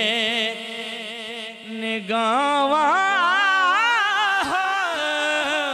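A man's voice singing a Punjabi naat, drawing out a long melismatic phrase: a held note at first, then from about two seconds in a louder run whose pitch waves up and down in ornaments. A steady hum holds one pitch underneath.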